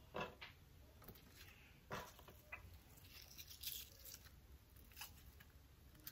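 Faint, scattered soft taps and rustles of sliced red onion being pulled apart by hand and dropped onto fish and vegetables in a stainless steel skillet, about five small clicks a second or so apart.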